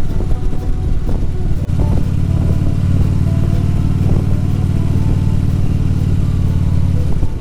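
Harley-Davidson Road Glide's V-twin engine running steadily under way, mixed with wind rush. After a brief dip about a second and a half in, the engine note comes back steadier and stronger.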